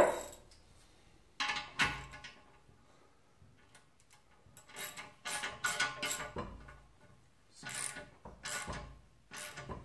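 Ratchet wrench clicking and steel nuts, washers and studs clinking against the differential housing of a Ford 9-inch rear axle while the studs are snugged in. A sharp metal clank comes right at the start, then irregular bursts of clicking and metallic ringing.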